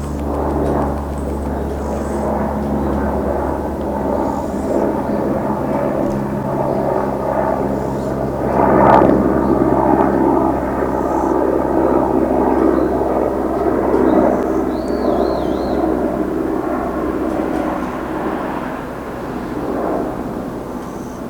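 Steady engine drone that swells to its loudest about nine seconds in, then slowly fades.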